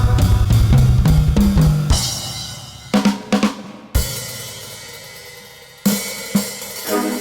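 Drum kit playing free improvisation: a dense, fast passage over low stepped notes for about two seconds, then a cymbal wash fading out with a few scattered hits, the playing picking up again near the end.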